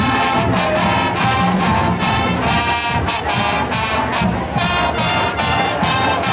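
Marching band playing a brass-led tune, trumpets and trombones over a steady beat of sharp percussion strikes.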